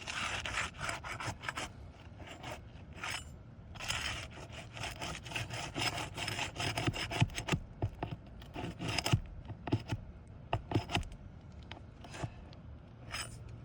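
Asphalt roofing shingles scraping and rubbing as they are worked loose to get at the nails underneath. In the middle comes a run of sharp clicks and knocks.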